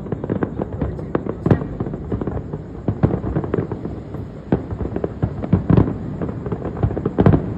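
Fireworks display going off: a dense, irregular rattle of bangs and crackles, with a few louder booms standing out.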